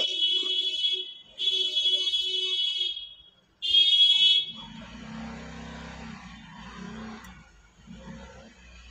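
An electronic alarm-like tone beeps three times, each a high-pitched steady note lasting about a second. A quieter low steady hum follows.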